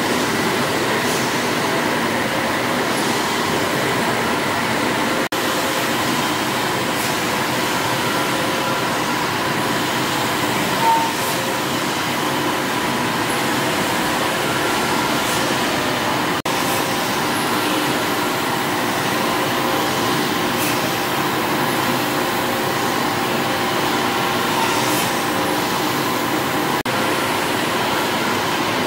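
Several stationary steam engines running together with their flywheels, flat belts and pulleys: a steady mechanical clatter and hum, with one brief louder knock about eleven seconds in.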